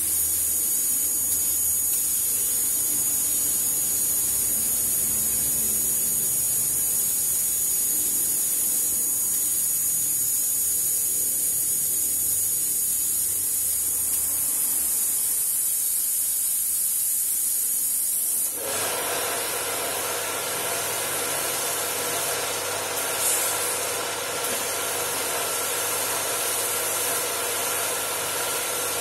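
Gravity-feed paint spray gun hissing steadily as it sprays car paint. About two-thirds of the way in, a steady machine hum with several tones cuts in suddenly under the hiss.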